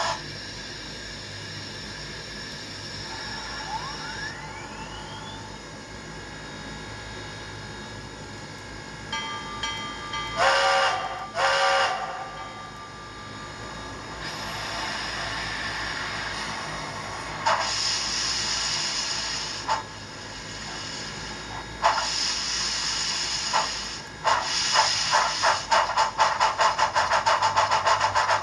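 Recorded steam-locomotive sounds from a LokSound v5 decoder's small speaker in a Broadway Limited Santa Fe Mikado model: a steady hiss with a rising whine near the start, two whistle blasts about ten seconds in, scattered hisses and clanks, and from about 24 seconds a run of steady chuffs as the model starts to move, quickening towards the end.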